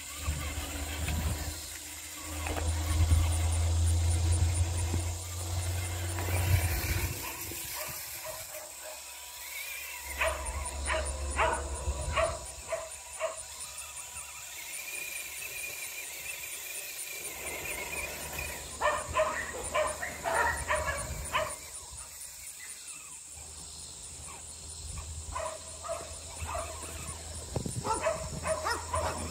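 A dog barking in several bouts of quick repeated barks, with a low rumble in the first few seconds.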